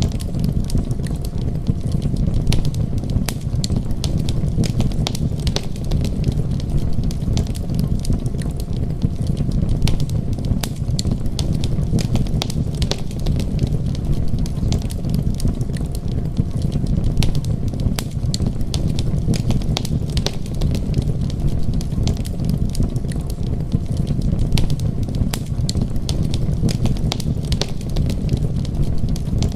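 Steady low rumbling noise dotted with frequent sharp crackles and pops, like a crackling-fire background track.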